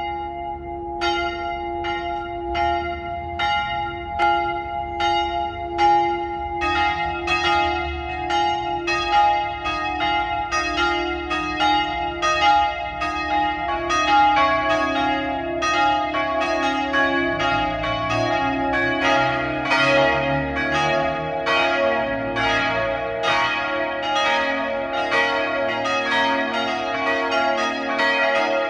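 A peal of several church bells ringing together, strike after strike with long ringing decays. About six seconds in the strikes grow denser as the peal fills out. This is the ringing-in before the Christmas Eve service.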